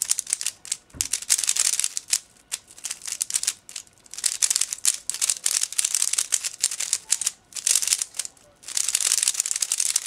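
50 mm Dayan ZhanChi 3x3 speedcube, loosely tensioned, being turned fast with one hand: quick runs of plastic clicking and clacking as the layers snap round, broken by a few brief pauses.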